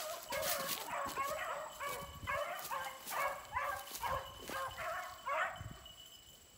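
Beagles baying on a rabbit's trail: a steady run of short, pitched bawls, two to three a second, that grow fainter and stop shortly before the end.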